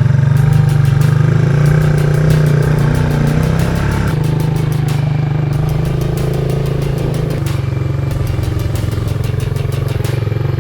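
Quad bike engine running steadily under way, with a fast regular pulse; its note shifts about four seconds in and again near seven seconds.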